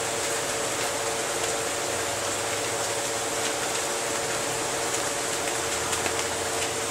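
Steady machine hum with a hiss over it, holding an even level, with two faint steady tones in it.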